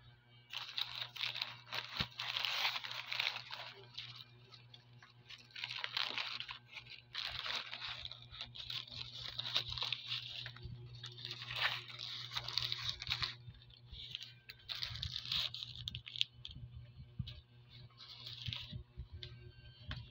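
Paper wrapper of a turon (banana spring roll) being crinkled and torn open in repeated rustling bursts, over a steady low hum.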